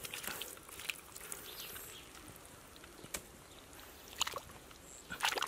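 Bare hands digging in wet mud: soft, scattered squelches and short wet clicks, with a few louder splats about four seconds in and near the end.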